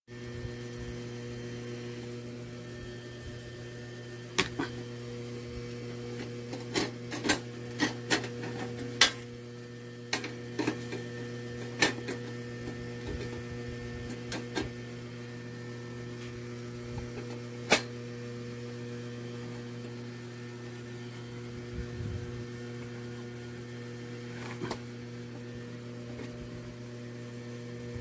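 A steady electrical hum with scattered sharp clicks and knocks from handling a portable butane camping stove and its plastic carry case as it is opened, set out and fitted with a gas canister. The clicks come in a cluster between about 4 and 12 seconds in, with a sharp one near 18 seconds and a few fainter ones later.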